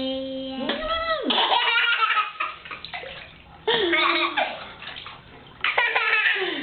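A baby squealing and laughing in several bursts, with water splashing in a bathtub.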